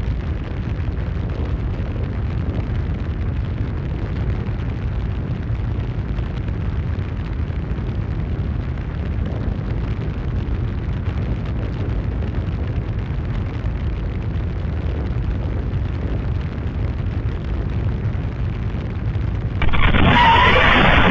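Steady low rumbling noise without any clear tone or rhythm. About nineteen and a half seconds in, a louder, brighter noise starts abruptly.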